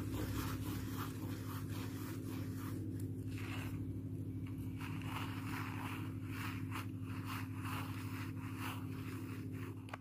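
DIY fidget joystick, a plastic bottle cap tied with rubber bands onto a cardboard square, being pushed around so it scrapes and rubs on the cardboard in quick scratchy strokes, about two to three a second, over a steady low hum.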